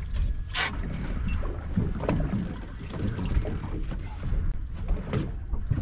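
Wind buffeting the microphone over a steady low rumble of water around a small boat on open sea, with a short splash about half a second in as a small fish is dropped back over the side, and a few light knocks.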